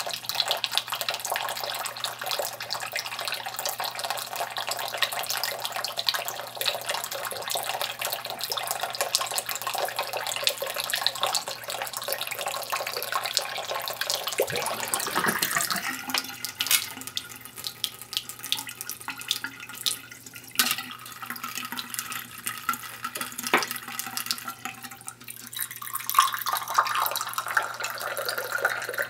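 Thin stream of tap water from a bathroom faucet splashing into the sink basin and drain. About halfway the sound changes as the chained rubber stopper is pulled from the drain, with a few light clinks. Near the end the stream pours into a small ceramic cup held over the drain.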